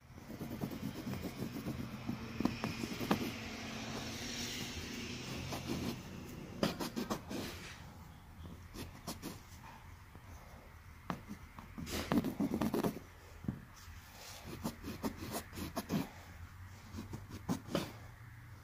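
Close scraping and picking at a stuck-on blob on upholstery fabric with a plastic scraper, fingertips and a cloth: irregular scratchy scrapes and small clicks, with a faint steady low hum underneath.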